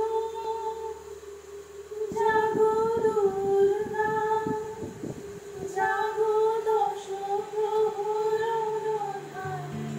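A woman singing a wordless melody in long, slowly gliding held notes, like a hummed or vocalised opening to a song. Low instrument notes come in near the end.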